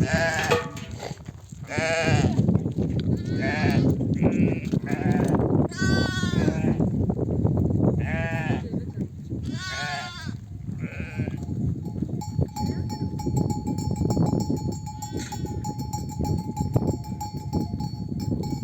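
A flock of sheep bleating: ewes calling to their lambs, about eight loud bleats in the first eleven seconds over the steady low shuffle and noise of the flock. After that the bleating stops and only the flock's noise and a faint steady high tone remain.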